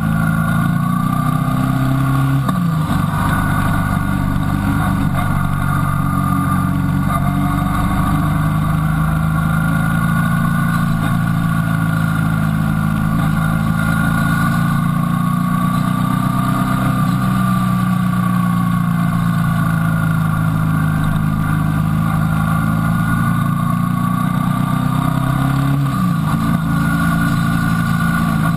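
Motorcycle engine heard on board the bike, running steadily through bends, its pitch slowly rising and falling with the throttle. The engine note shifts abruptly about two and a half seconds in and again near the end.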